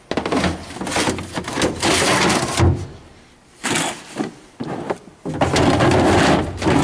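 Handling noise from a toolbox drawer: tools and a tool case being moved about, clattering and scraping in several bursts with short pauses, with a drawer sliding.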